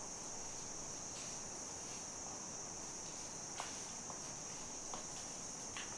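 Rainforest insect chorus, a steady high-pitched drone, with a few faint clicks in the second half.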